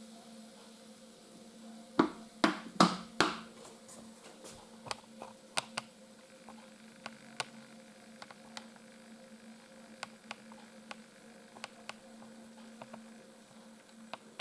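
Freshly poured carbonated elderflower kvass fizzing in a glass: scattered sharp pops of bubbles bursting in the foam, about one or two a second. Four louder knocks come about two seconds in, over a steady low hum.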